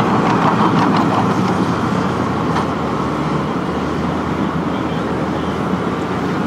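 Excavator's diesel engine running steadily under load, with a few light clanks in the first few seconds.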